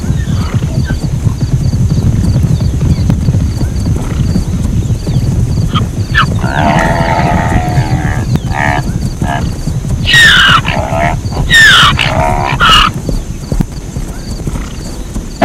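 Zebra calling: a run of pitched calls begins about six seconds in, with several loud high calls falling steeply in pitch around ten to thirteen seconds, over a steady low rumble.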